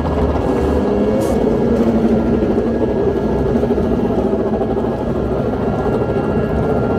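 Racing motorcycle engine idling steadily.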